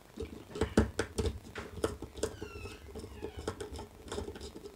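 Irregular small clicks and rustles of stiff insulated control wires being handled, bent and pushed against a plastic contactor, with a brief falling squeak about halfway through.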